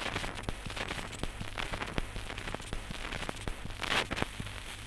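Surface noise of a Pathé needle-cut shellac 78 rpm record playing in its groove with no recording yet sounding: dense crackle and scattered clicks over a steady low hum, with a louder scratchy patch about four seconds in.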